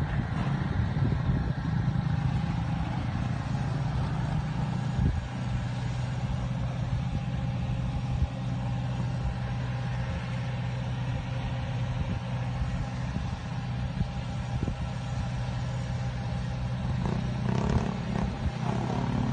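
A vehicle engine running steadily, a low even drone, with a slight rise in pitch near the end.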